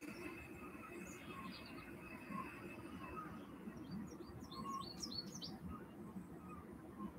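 Faint bird chirping: a short cluster of high chirps about a second and a half in, then a quick run of rising chirps from about four to five and a half seconds, over low steady room noise.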